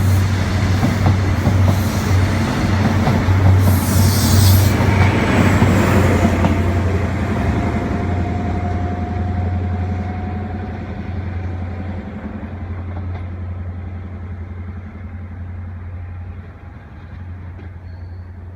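Train passing and fading away: a steady low hum under rumbling wheel noise, loudest in the first six seconds with a brief high rushing noise about four seconds in, then dying away.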